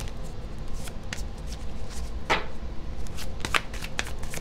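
A tarot deck being shuffled and handled: irregular card rustles and clicks, with a few sharper card snaps, the loudest about two and three and a half seconds in.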